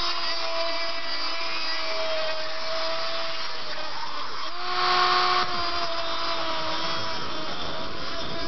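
Dremel rotary tool grinding into the metal can of a TO-3 power diode package: a steady high-pitched whine. About five seconds in comes a louder, harsher grinding burst as the pitch steps up, then it eases back down.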